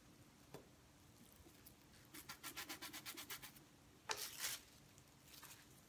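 Plastic cling wrap crinkling and rustling as it is handled: a quick run of small crackles about two seconds in, then one louder rustle about four seconds in.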